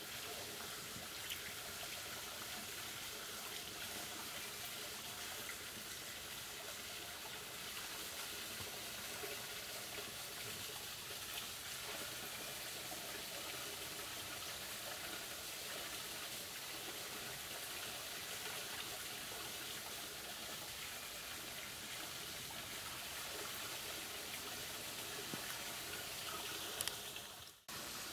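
Steady sound of running water from a spring. It cuts out briefly near the end.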